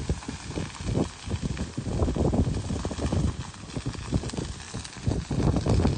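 Fire burning through a palm grove and reed brush, crackling and popping irregularly over a low rumble.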